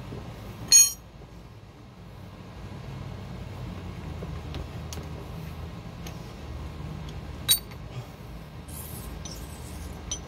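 Sharp metallic clinks of tools or parts knocking against the truck's front suspension: a loud ringing clink about a second in, another about seven and a half seconds in, and a few faint ticks between, over a low steady hum.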